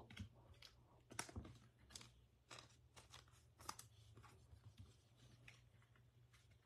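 Faint scattered clicks and light rustles of trading cards being handled and set down, over a steady low hum.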